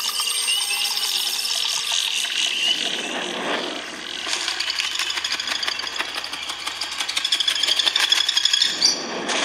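Soundtrack of a nature demo video playing from the OnePlus 8's speakers: repeated high chirping trills over a rustling hiss. The sound swells about three seconds in and changes abruptly just before the end.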